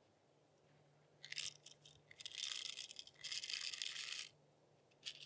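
Whole coffee beans poured from a scoop into a stainless hand coffee grinder, rattling into it. A short clatter about a second in, then two longer rattling pours, and a brief rattle near the end.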